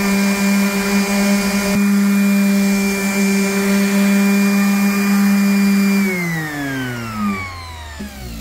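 Electric power tool motor running at a steady speed, then switched off about six seconds in and winding down, its hum falling in pitch as it slows.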